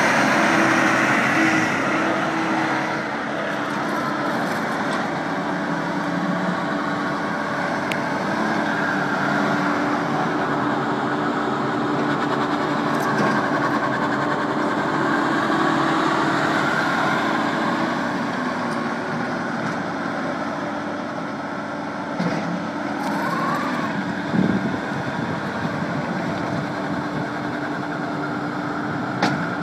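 Takeuchi TL150 tracked skid steer's 97 hp diesel engine running under operation, with a steady drone and gentle shifts in level, and a few short knocks near the end.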